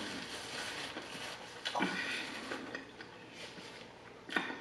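Close-miked chewing of fried chicken: soft, wet mouth sounds with a few brief crunchy clicks, the plainest about two seconds in and near the end.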